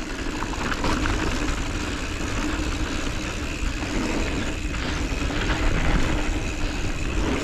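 Mountain bike rolling fast down a dirt trail: steady tyre and wind noise on a bike-mounted action camera, with a faint steady hum underneath.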